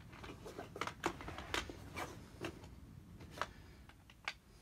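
Faint clicks and rustles of tools being handled and stowed in a tool bag: a plastic jar of small fittings and a handheld coax tester tucked back into the bag's pockets, with a few sharper clicks scattered through.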